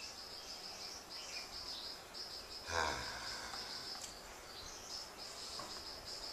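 Insects chirping in a continuous high, pulsing trill, with one brief louder sound about three seconds in.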